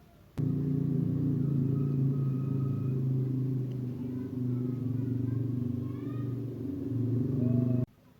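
A small engine running steadily, a low hum that starts suddenly about half a second in and cuts off suddenly near the end.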